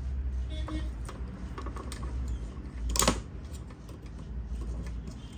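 Small clicks and rattles from handling the battery tester's leads and clamps as a battery is hooked up, with one loud sharp click about three seconds in, over a steady low hum.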